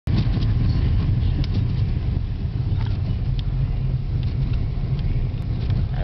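Steady low rumble of a small car's engine and road noise, heard from inside the cabin while driving, with a few faint light ticks over it.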